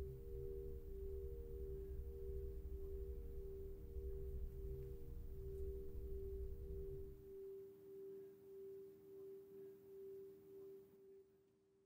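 Ambient drone of a few steady, pure tones over a low rumble. The rumble stops about seven seconds in, leaving the tones pulsing slowly before they fade out near the end.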